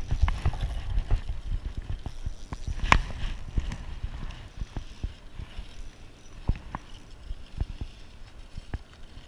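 Handling noise from a spinning rod and reel held over a plastic kayak: irregular clicks and knocks with low thumps, busiest in the first few seconds, with one sharp click about three seconds in, then sparser taps.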